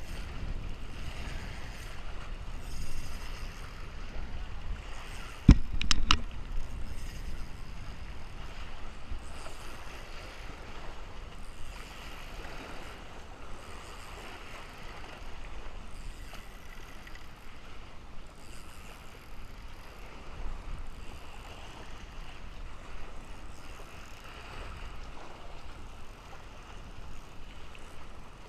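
Steady wind and water noise around a small fishing boat, with two sharp knocks close together about six seconds in.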